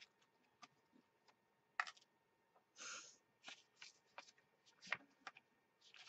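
Sticker books and paper sticker sheets being handled on a tabletop: faint scattered paper rustles and light clicks, with a brief paper slide about three seconds in.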